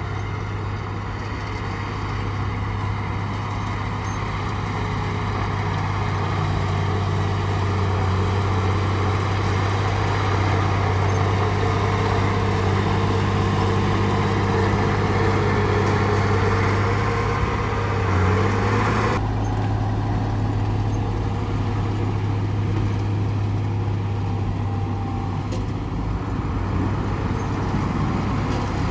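Dump truck engines running steadily, swelling a little toward the middle; about two-thirds of the way through the sound changes abruptly and the higher part drops away.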